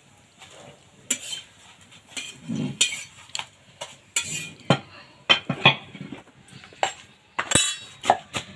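Metal spatula scraping and knocking against a flat iron tawa as a paratha is turned and folded on it: a string of irregular sharp clinks and scrapes.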